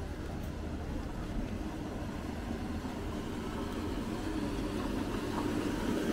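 Steady outdoor city background noise with a low rumble, growing slightly louder toward the end.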